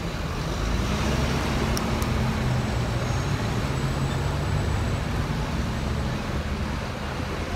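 City street traffic: the steady low hum of a motor vehicle engine running close by, over the general noise of the road.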